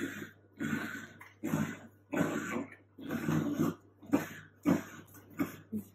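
Dachshunds play-growling and grunting in short rough bursts, one after another, as they wrestle and tug at a blanket.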